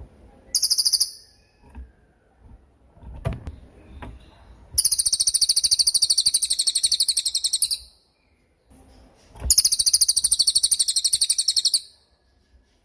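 Cililin songbird singing: a short, high trill, then two long trills of very fast repeated notes, each lasting about three seconds. A soft low knock is heard in between.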